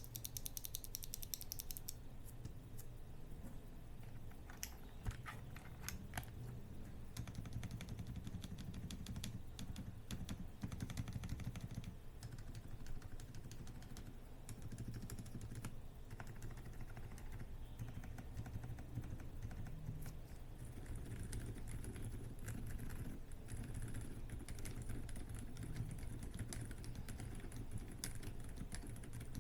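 Steady, fast typing on a Xinmeng X98 Pro mechanical keyboard with Outemu Silent Peach silent switches and PBT doubleshot keycaps. The keystrokes are damped and muted.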